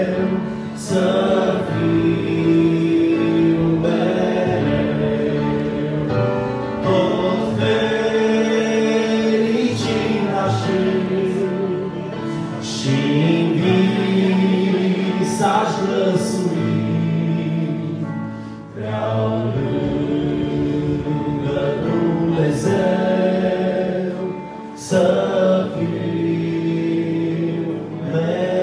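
Choir singing a hymn in long held notes, phrase after phrase with brief breaks between them.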